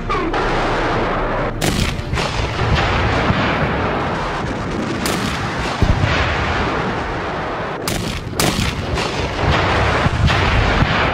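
Artillery shells exploding amid gunfire: a dense, continuous rumbling din broken by sharp blasts about a second and a half in, around five seconds, and twice close together near eight seconds.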